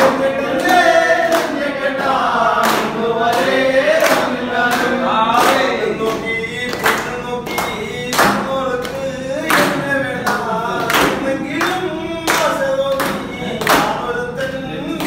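Men singing a song together, with hand clapping keeping a steady beat of about three claps every two seconds.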